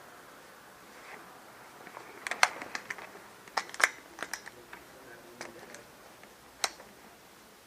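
Irregular sharp clicks and snaps: a cluster about two seconds in, two louder ones near four seconds, and a single one near the end.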